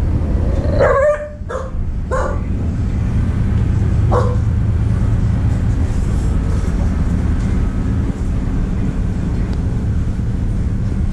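A dog barking four times, short barks in the first four seconds, the first the loudest, over the steady low drone of the ship's engines.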